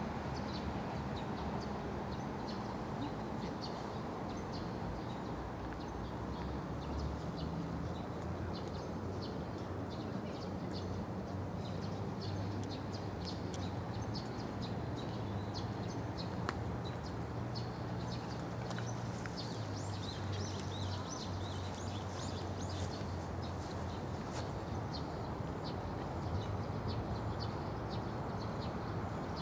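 Outdoor ambience: small birds chirping in many short, high calls over a steady low background rumble.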